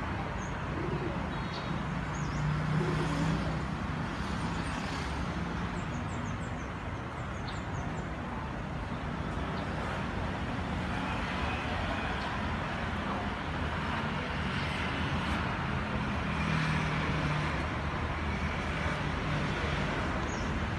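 Steady rumble of road traffic, with small birds chirping now and then and a dove cooing low, once a few seconds in and again near the end.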